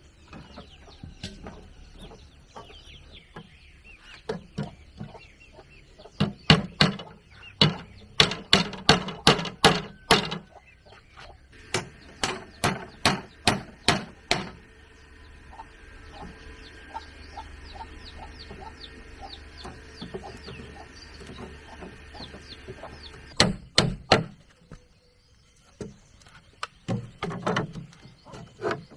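Repeated sharp blows on wood, about two a second, in two runs near the middle, with a few more near the end; chickens cluck in the background.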